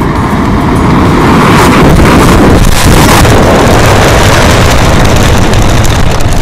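Thousands of sparklers burning together inside a watermelon, a loud rushing hiss that builds over about the first second, then holds steady.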